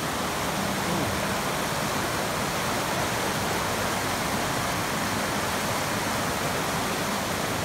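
Large forest stream rushing over boulders in whitewater rapids: a steady, unbroken rush of water.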